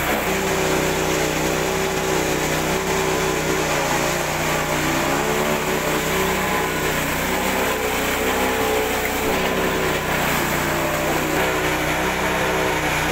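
A small engine running steadily, its pitch dipping and recovering a few times.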